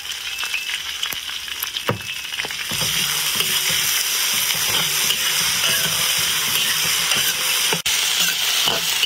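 Chili bean paste (doubanjiang) frying in hot oil in a wok with dried chilies and spices, sizzling steadily as it is stir-fried to bring out the red oil. The sizzle grows louder about three seconds in as a metal spatula stirs and scrapes the wok, with a brief break near the end.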